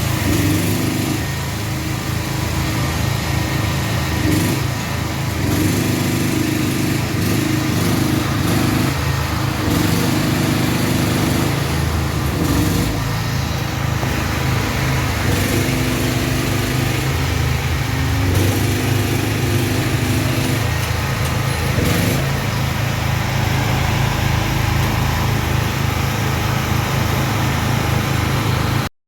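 A small engine running steadily, its note wavering now and then as if under changing load.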